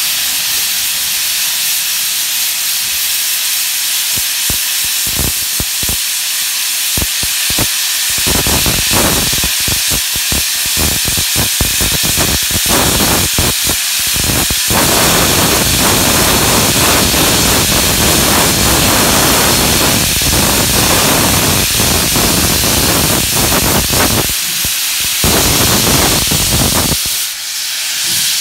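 Steam locomotive hissing loudly as it vents steam low at its front end. The hiss is steady, with a fuller, deeper rush in uneven surges through the middle stretch.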